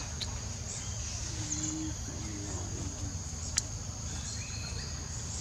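Forest ambience: a steady high-pitched drone of insects over a low rumble, with a few faint short calls and one sharp click about three and a half seconds in.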